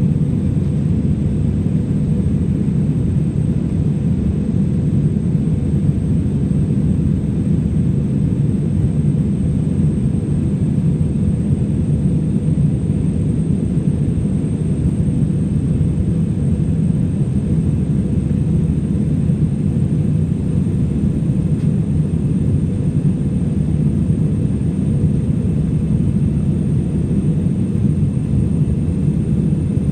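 Steady low roar of jet engines and airflow heard inside an Airbus A320 airliner cabin in flight, unchanging throughout.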